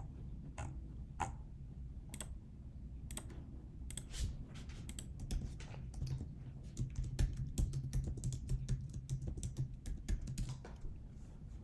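Typing on a computer keyboard: a few scattered clicks at first, then a quick run of keystrokes from about four seconds in until near the end, over a low steady hum.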